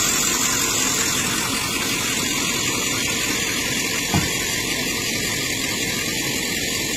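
Truck engine running steadily under load while it pulls a stuck SUV up a flooded ramp on a tow strap. A brief knock about four seconds in.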